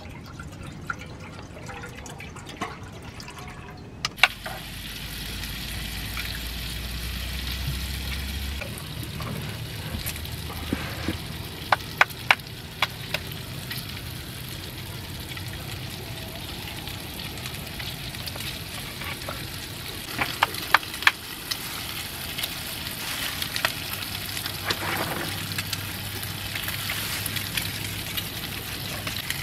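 Camp stove burner hissing steadily under a pot of water for grits, starting suddenly about four seconds in. A few sharp clinks of cookware and utensils come through it.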